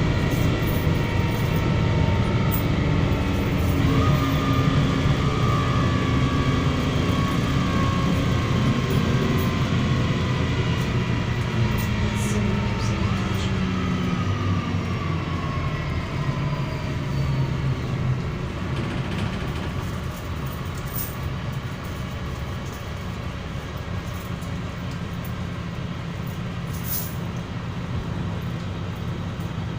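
Interior sound of a MAZ-103 city bus under way: engine and drivetrain running, with a whine that falls in pitch as the bus slows. After about 20 seconds the running becomes quieter and steady.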